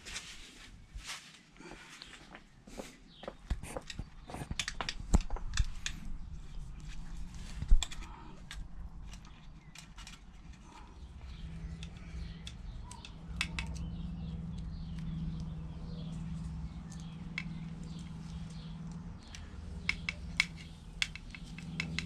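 Clicks and knocks of hand work on a bicycle's gear cables and housing, busiest in the first eight seconds with one sharper knock. A low steady hum comes in about halfway and carries on.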